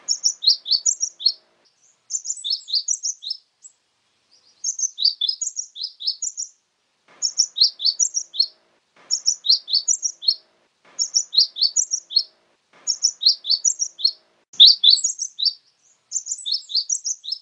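Cinereous tit (glatik batu, or glatik wingko) singing: about nine bursts of quick, high-pitched notes, each burst one to two seconds long with short pauses between them.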